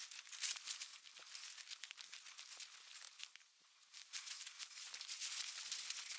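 Dense rustling and crackling that stops for about half a second midway.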